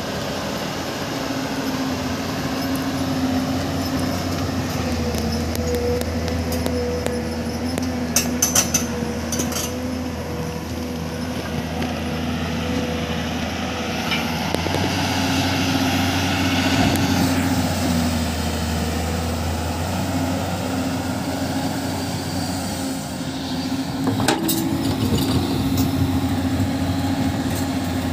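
Excavator and dump truck engines running steadily under load, with a few sharp metallic clanks about eight seconds in and again near twenty-four seconds.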